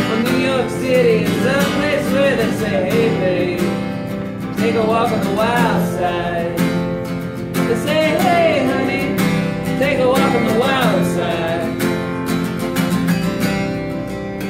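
Live music: an acoustic guitar strummed, with a voice singing a wordless, wavering melody over it at times.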